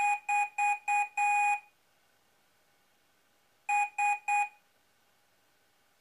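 Morse-code beeps from a microcontroller's small speaker: four short beeps and one longer one, then after a pause of about two seconds three more short beeps, all at the same steady pitch. It is one microcontroller sending an address or letter code to its neighbour in the chain.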